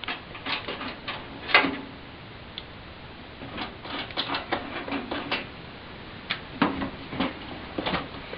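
Irregular clicks and light knocks of a desktop computer case's side cover being worked loose and taken off, in small clusters over the few seconds.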